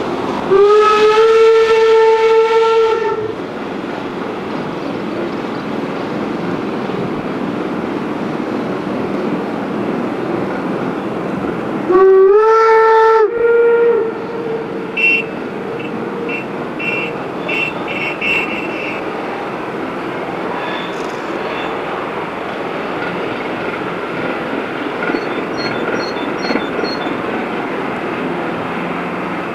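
Steam locomotive 24 009's whistle blown twice: a long steady blast starting about half a second in and lasting nearly three seconds, then a shorter blast about twelve seconds in, ending with a brief extra toot. Between and after the blasts the train runs on with a steady rumble.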